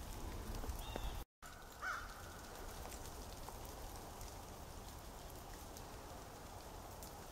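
Faint ambience of an ice-glazed winter wood: scattered light ticks of dripping and falling ice over a low hiss. A single bird call comes about two seconds in, and the sound drops out for an instant at a cut just before it.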